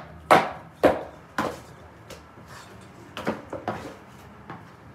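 A series of hard knocks as boxes are being smashed: three loud blows about half a second apart, then a few lighter knocks.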